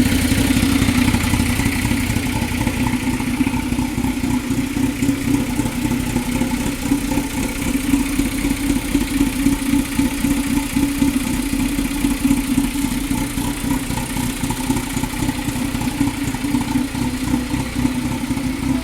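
A 2000 Toyota MR2 Spyder's 1.8-litre four-cylinder engine idling roughly, with an uneven, pulsing beat.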